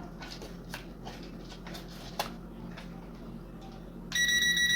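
Faint scattered clicks and taps, then about four seconds in a steady, high electronic beep starts and holds, much louder than the clicks.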